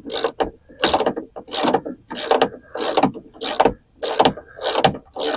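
Ratchet wrench clicking in short, even back-and-forth strokes, about eight of them, as a door-latch bolt is tightened back in.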